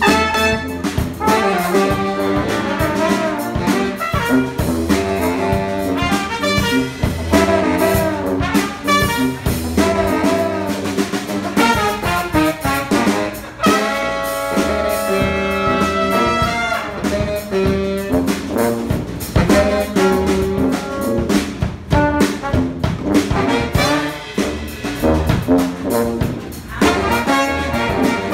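Brass band playing live: sousaphone bass line under drum kit, saxophone, trombones and trumpet. About halfway through, the horns hold long notes for a couple of seconds.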